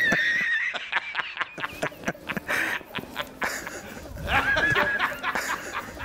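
A man laughing hard in rapid, repeated ha-ha pulses, with a high squeaky note at the start and again about four seconds in.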